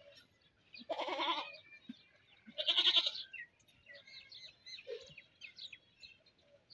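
Two short animal calls with a wavering pitch, one about a second in and a louder one about three seconds in, with faint high chirps between them.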